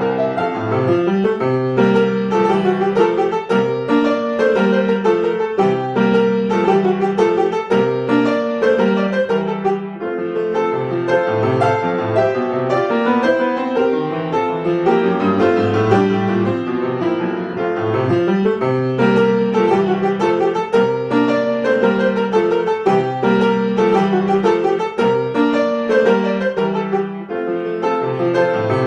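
Solo piano playing a continuous piece with a busy, even flow of notes and a steady bass line beneath.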